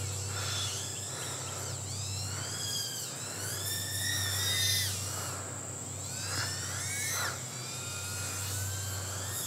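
Happymodel Mobula8 micro quadcopter's 1103 brushless motors and props whining in flight, the pitch rising and falling several times with the throttle.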